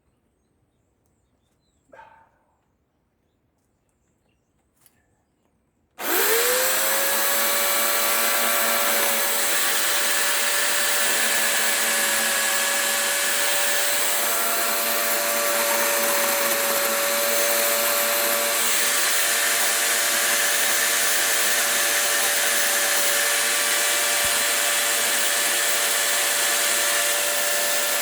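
A couple of faint knocks. Then, about six seconds in, a Dremel rotary tool is switched on, spins up within a moment to a steady high-pitched whine and keeps running as it trims wood.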